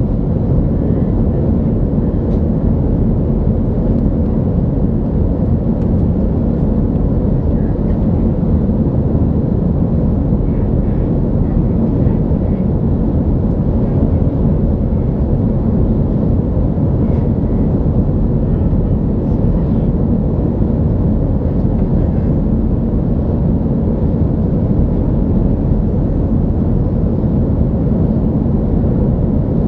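Steady airliner cabin noise in flight: an even, low rush of engine and airflow noise heard from a passenger seat.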